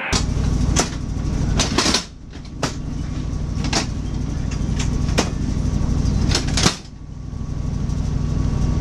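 Sleeper-car bench seats being worked into a berth: a series of sharp knocks and clacks from the seat parts. They sound over the steady low rumble of the railway carriage.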